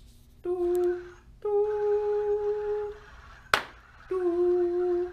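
A person hums three held single notes, the middle one slightly higher and longest, as pitch commands that make a sound-controlled robot pivot. A single sharp clap between the second and third notes is the loud-signal command that toggles the robot between driving and stopping.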